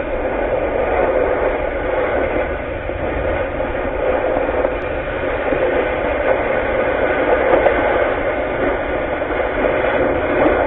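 Oxy-fuel cutting torch running with a steady, unbroken hiss as it cuts through steel at a truck's leaf-spring pack.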